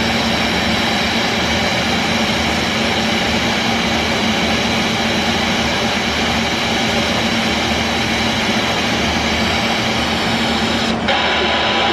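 Spirit box radio sweeping the stations, giving a continuous loud hiss of radio static over a steady low hum, with a brief click near the end.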